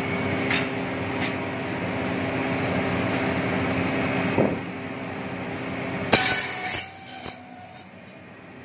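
Bamboo satay-skewer slicing and planing machine running with a steady hum. Sharp knocks of bamboo strips being handled come about half a second and a second in, and a louder clack about six seconds in. After that the machine runs quieter.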